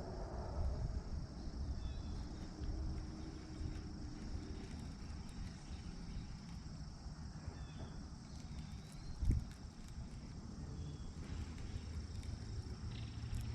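Outdoor ambience over a lake: a steady high-pitched insect drone over a low rumble, with a few faint short chirps and a single low knock about nine seconds in.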